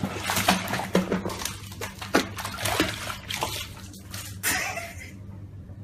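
Bathwater splashing in irregular bursts as a cat thrashes in a bubble bath and scrambles out, over a steady low hum.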